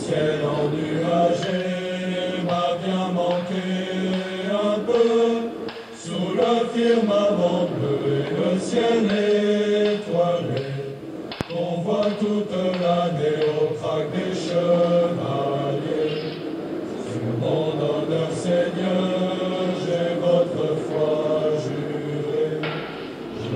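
Background music: a choir chanting long, slowly changing sung notes.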